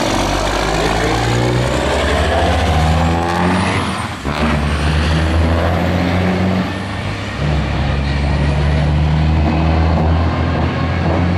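Two semi-truck diesel engines at full throttle in a drag race, running loud with black smoke from the stacks. The pitch climbs, then drops and climbs again about four and seven seconds in as the trucks shift up through the gears.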